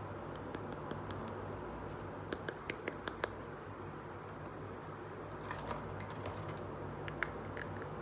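Small plastic toy dishes, a toy plate and pizza slice, being handled: light clicks and taps in two short flurries, over a steady low hum.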